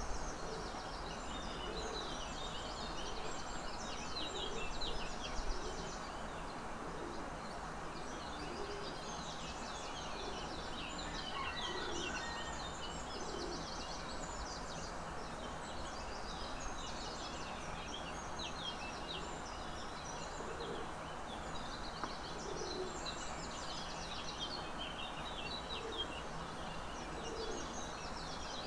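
Many small birds chirping and twittering over a steady ambient hiss, with occasional short low-pitched sounds underneath.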